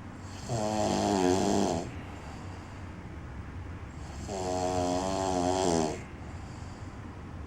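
A man snoring loudly: two long, rattling snores about four seconds apart, the first about half a second in and the second about four seconds in, with quieter breaths between them.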